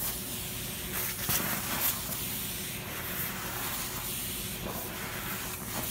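Vacuum cleaner running with its hose wand drawn over a cat's fur: a steady rushing hiss of suction over a faint motor hum. There are a few short louder surges between about one and two seconds in.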